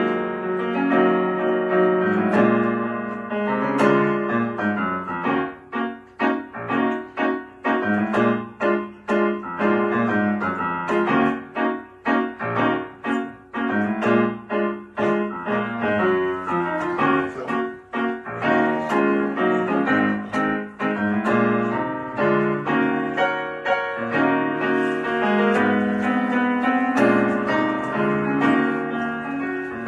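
Piano music: chords and melody notes struck in a steady flow, with no singing.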